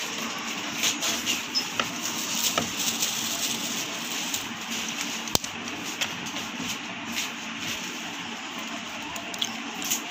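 Eggs being cracked on a bowl: a few short sharp taps of shell, the sharpest about halfway through, over a steady background noise.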